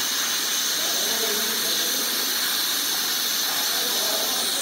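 Oxyhydrogen (HHO) welding torch flame hissing steadily as it burns gas made by electrolysing water.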